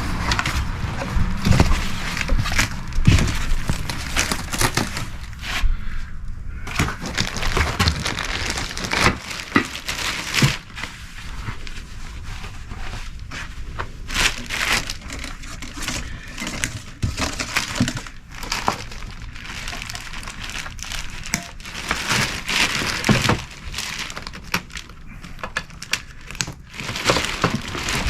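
Packaging being handled and pulled open during an unboxing: irregular crinkling, crackling and rustling with occasional knocks.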